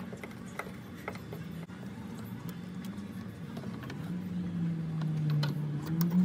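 Plastic clicks and rattles of the fuel pump module's wiring connectors being handled and unplugged. A low hum runs underneath and grows louder, wavering in pitch, in the last couple of seconds.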